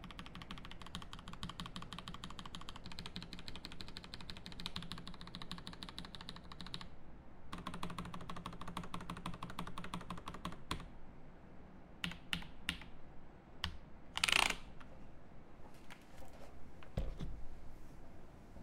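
Typing on a Rama M65-B mechanical keyboard with a brass plate, lubed Paco switches and GMK keycaps. Fast, even keystrokes, a short break about seven seconds in, more fast typing, then single scattered keystrokes with one louder, longer noise about fourteen seconds in.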